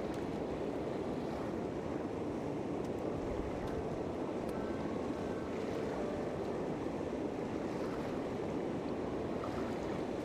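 Steady rushing of water pouring over a low dam and churning below it.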